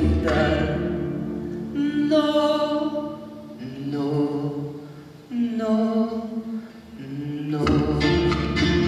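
Man singing a slow Spanish-language ballad into a microphone over a music accompaniment, holding long notes phrase by phrase. The deep accompaniment drops away about a second in and the full backing comes back in near the end.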